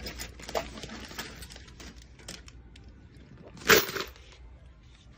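Handling noise from a phone being moved about: scattered clicks, knocks and rustles, with one louder rubbing knock a little under four seconds in.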